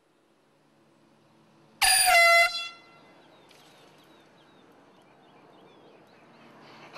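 An air horn sounds one short, loud, steady blast about two seconds in, lasting under a second.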